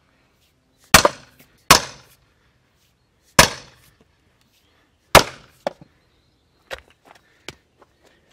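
A steel splitting wedge struck four times with a long-handled hammer, driving it into a firewood log; the blows come unevenly spaced, each a sharp crack with a brief tail. A few lighter knocks follow near the end.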